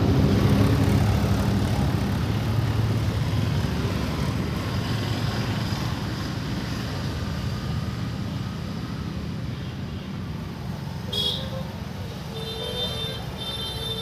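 Road traffic: a vehicle engine's low hum slowly fading away, with a horn tooting briefly about eleven seconds in and again near the end.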